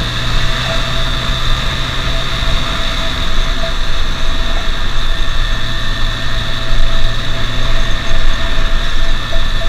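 Motorcycle running along at road speed, its engine note steady under a heavy rush of wind on the microphone. The low engine hum eases off for a couple of seconds in the middle, then comes back.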